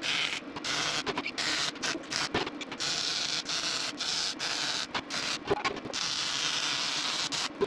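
MIG welding arc from a Lincoln Electric Power MIG welder laying a bead on steel: a steady hiss broken by many short gaps where the arc stops and restarts.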